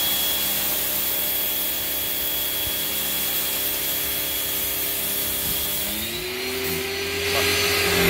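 Electric pressure washer running, its jet hissing against the plastic wall of a washing-machine tub, with a steady motor hum. About six seconds in the motor's pitch rises and the spray hiss thins, which the user takes for the water supply running out.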